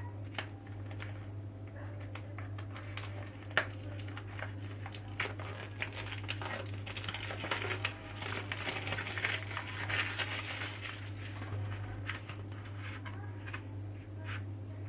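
Close handling noises: scattered light clicks and crinkling rustles, busiest in the middle, over a steady low hum.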